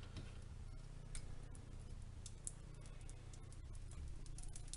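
Multi-wire wooden soap cutter pushed down through a loaf of cold process soap, the wires slicing through with faint, irregular ticks and clicks.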